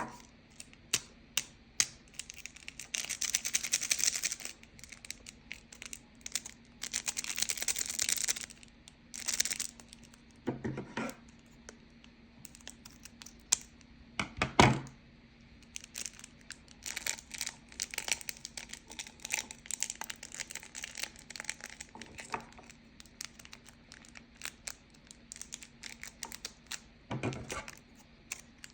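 Hands handling slime-making materials: crinkling and tearing, with many light taps and clicks and a few louder knocks.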